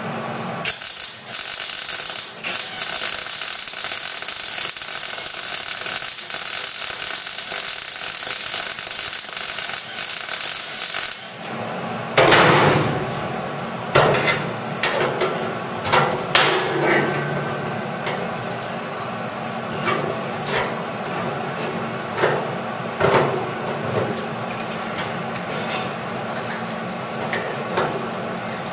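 MIG welder arc on the car's steel bulkhead and dash panel seam, crackling steadily for about ten seconds. After that come a dozen or so short, sharp bursts, one every second or two, the first and loudest about twelve seconds in.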